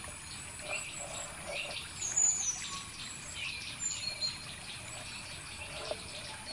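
Birds chirping and calling over a steady high insect drone, with a few soft knocks.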